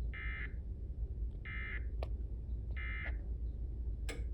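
Emergency Alert System end-of-message code: three short bursts of warbling digital data tones, about a second and a half apart, signalling the end of the flash flood warning. A steady low hum lies under them, with a few sharp clicks in the second half.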